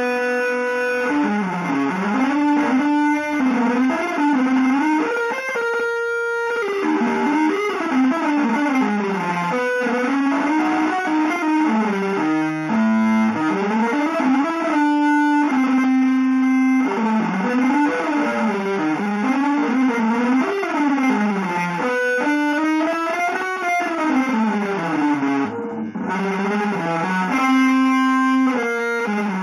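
Electric guitar playing a free, atonal improvisation: a continuous line of notes that slides and bends up and down in pitch, now and then settling on a held note, about 6 s in, near the middle and near the end.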